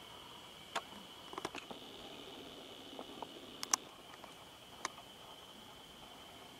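Steady high-pitched insect drone, with a few sharp clicks or snaps scattered through the first five seconds, the loudest a pair about three and a half seconds in.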